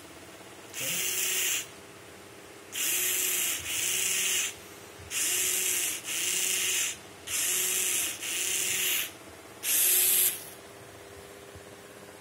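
Hobby servo motors whirring through their gears in eight short bursts of under a second each, mostly in back-to-back pairs, as their arms swing to new positions.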